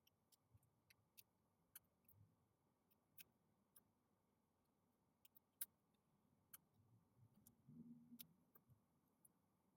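Near silence: room tone with faint, irregularly spaced sharp little ticks, and a brief faint low hum about eight seconds in.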